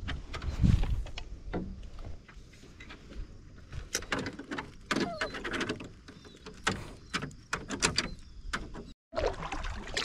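Irregular knocks and clicks inside a canoe as things shift against the hull, with water lapping at the boat.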